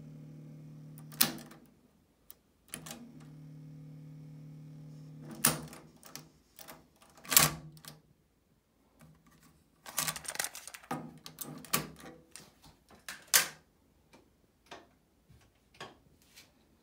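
Marantz 5025 cassette deck's transport running with a steady low hum, stopped by a clunk of a piano-key control about a second in, running again briefly, then clunks of the stop/eject keys and the loudest clack as the cassette door springs open. Clicks and rattles follow as the cassette and door are handled.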